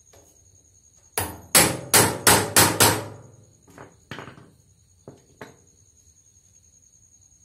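Hammer blows on metal at the wheelbarrow wheel's hub, driving the rebuilt wheel onto its axle: six hard, ringing strikes about three a second, then a few lighter taps.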